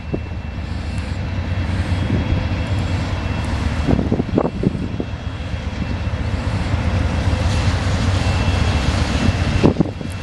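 Two Norfolk Southern diesel locomotives rumbling as they haul a freight train past at close range, a steady deep engine drone building louder, with a few knocks about four seconds in.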